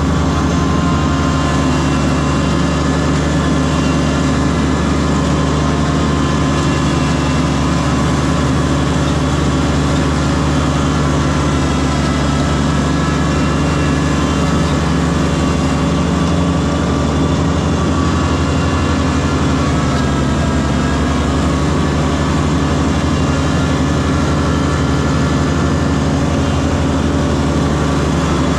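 Kubota tractor's diesel engine running steadily at an even speed, loud and unchanging throughout.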